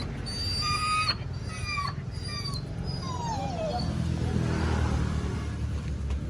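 A dog whining in several short, high-pitched whimpers, the last one a longer whine sliding down in pitch, over a low steady hum.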